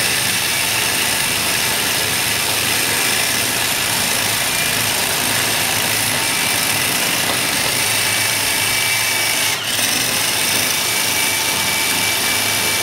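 Handheld electric core drill turning a diamond core bit, grinding steadily into a wall with a high motor whine. The sound dips briefly about ten seconds in.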